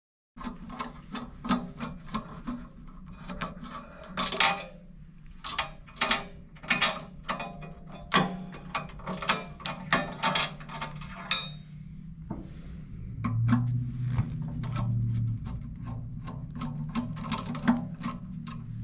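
Screws being worked out of a Mythos Basic espresso grinder's burr holder with a long Phillips screwdriver: irregular metallic clicks, taps and scrapes of the tool on the screw heads and aluminium housing, over a low steady hum.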